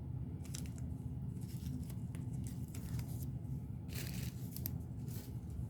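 Packaging rustling and crinkling in short spells as a small bead bag is handled and opened, over a steady low background hum.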